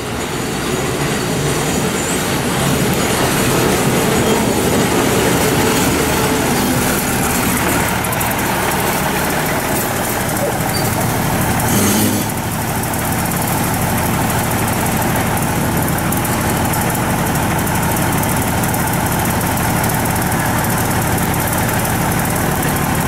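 State Railway of Thailand diesel railcar train rolling slowly into the station and then standing with its underfloor diesel engines idling steadily. A short burst of noise about halfway through marks the change from rolling to the steady idle.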